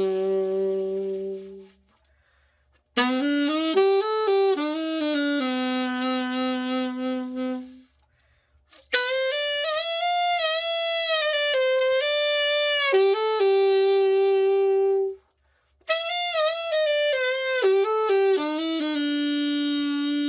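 Autobahn AAS-92G alto saxophone played solo in slow melodic phrases a few seconds long, with short pauses between them: a play test after its overhaul and regulation.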